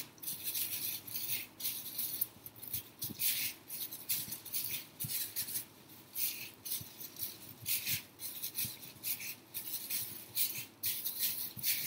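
Plastic bag strips rustling and crinkling as they are braided by hand, in short bursts about one or two a second.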